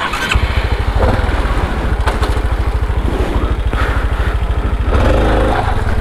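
Honda CT125's single-cylinder engine picks up about a third of a second in and runs under throttle with an even, rapid firing beat while the stuck bike is worked out of a dirt rut. It gets louder for about half a second near the five-second mark as the revs rise, then settles back.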